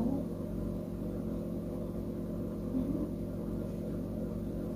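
Steady low hum made of several fixed tones, unchanging throughout: room tone with no distinct event.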